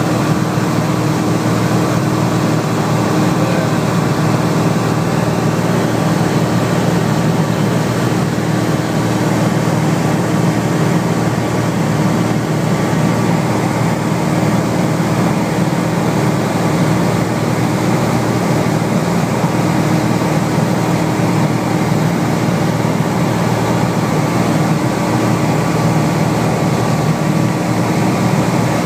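Light single-engine plane's piston engine and propeller droning steadily in cruise flight, heard from inside the cabin.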